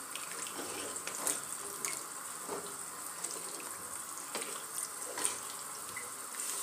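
Wooden spatula stirring rice and water in a pot, the liquid sloshing with a few light knocks against the pot, over a steady hiss.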